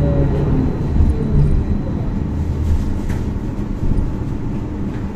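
Stadler B85600M low-floor tram in motion: a steady rumble of wheels on rails, with a faint whine falling in pitch over the first second or so.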